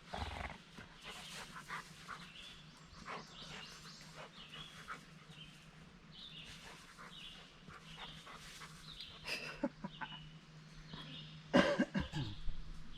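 A Doberman pinscher moving about and making small dog noises, with scattered short clicks and rustles. Near the end there is a loud thump.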